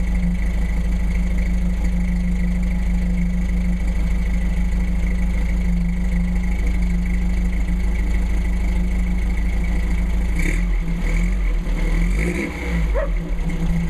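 Volkswagen Beetle's air-cooled flat-four idling steadily through a custom exhaust with a Flowmaster 40 Series muffler, heard close to the chrome tip. A few short sounds break in over the idle about ten to thirteen seconds in.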